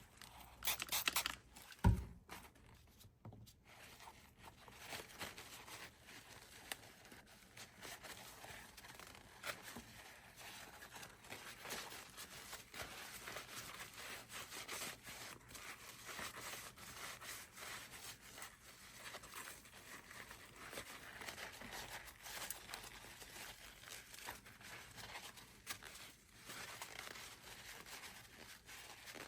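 Paper towel crinkling and rubbing as a small plastic pinball part is wiped down with cleaner, a steady faint scratchy rustle. There is a single sharp knock about two seconds in.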